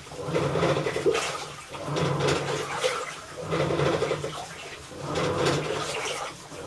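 Hitachi Shiroi Yakusoku top-loading washing machine agitating a wash, with water sloshing and a grinding creak like rusty gears on each stroke, about once every second and a half. The cause of this abnormal noise is unknown.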